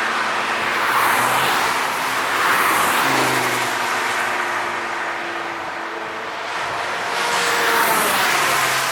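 Several cars passing by one after another at speed on a race circuit, engines running hard, the sound swelling and fading as each goes past, loudest about a second in, about two and a half seconds in, and near the end.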